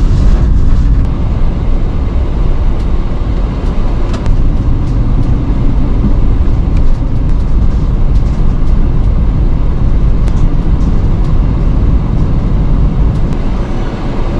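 Cargo van driving, heard from inside the cab: a steady low rumble of engine and tyre noise, with a few brief clicks or rattles here and there.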